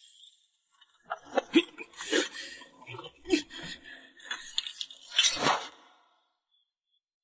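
Metal clinking and rattling of soldiers' armour and weapons as they seize a man: a quick, irregular run of clinks over about five seconds, the loudest near the end, then it stops.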